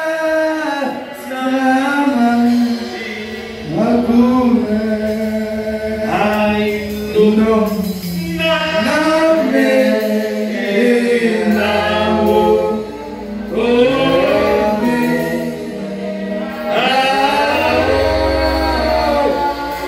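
Gospel song sung into microphones by a male voice and women's voices, in phrases with long held notes.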